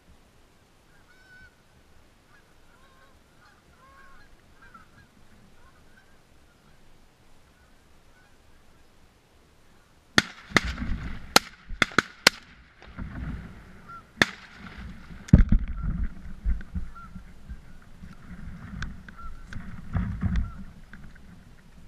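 A flock of Canada geese honking, faint at first. From about ten seconds in, a run of loud sharp cracks and low rumbling comes in over the continuing honks.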